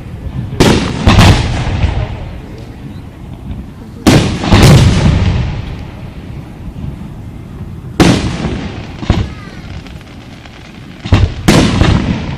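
Aerial firework shells bursting: about seven loud booms, some in quick pairs less than a second apart, each trailing off in a long rumbling echo.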